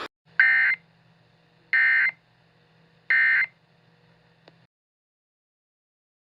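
Emergency Alert System end-of-message code: three identical short bursts of SAME data tones, about a second and a half apart, marking the end of the alert. A faint low hum runs under them and stops with a small click.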